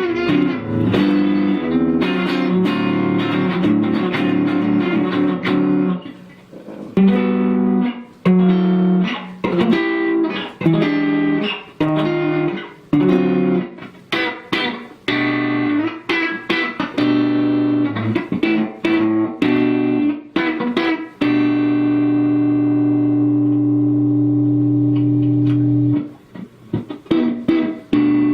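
Electric guitar, an AliExpress copy of a Rickenbacker 315, playing a riff of picked notes and chords, then letting one chord ring for about five seconds before a few more notes near the end.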